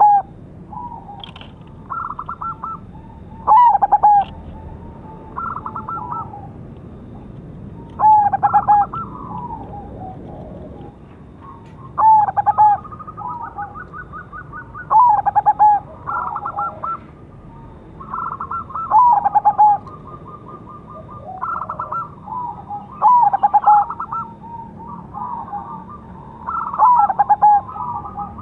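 Zebra dove (perkutut) cooing: a loud phrase of rapid staccato coo notes about every four seconds, with quieter trilled coo phrases in between.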